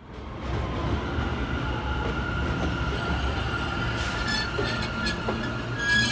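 New York City subway train running through the station: a steady low rumble of wheels on track, with high-pitched wheel squeal building near the end.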